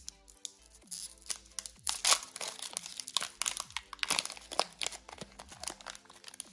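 Foil Pokémon card booster pack being handled and torn open: a dense, irregular run of crinkling and crackling rustles.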